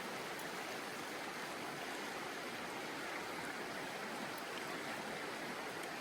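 Steady rushing of a river running slightly high over its bed.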